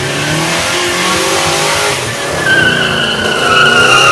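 Muscle car doing a burnout: the engine revs, rising in pitch, over the hiss of the spinning rear tires. About halfway through, a loud, steady tire squeal takes over and is loudest near the end.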